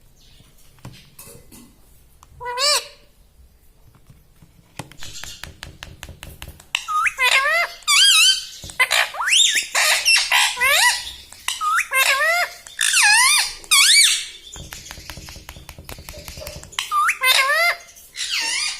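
Ring-necked parakeet giving high, wavering squawks: one call about three seconds in, then a long run of loud calls in quick succession, and a few more near the end.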